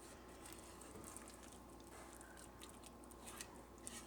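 Faint wet squishing of refried beans being stirred and mashed in a saucepan, with a few light clicks of the utensil against the pan.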